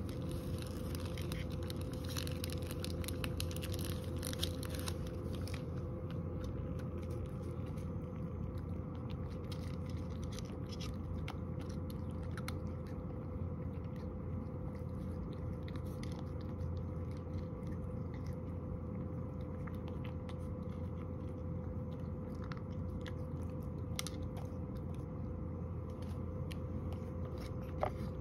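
Cat eating from a wooden dish, chewing and licking with small wet clicks that are busiest in the first few seconds. A steady low hum runs underneath.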